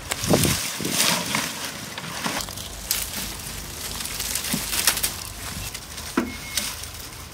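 Dry thorny brushwood and twigs rustling and crackling as they are handled and piled, with irregular sharp snaps of breaking sticks.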